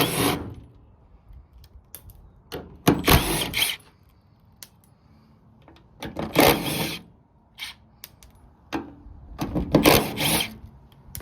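Power tool running in four short bursts, each about a second long, while the truck door hinge bolts are being taken out.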